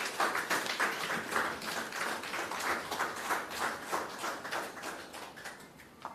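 A small seated audience applauding, many hands clapping together, fading away near the end.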